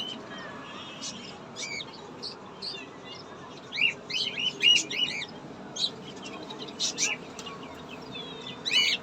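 Many small caged birds chirping and calling at once, in quick short high notes. The calls are loudest in a dense cluster about four to five seconds in and again near the end.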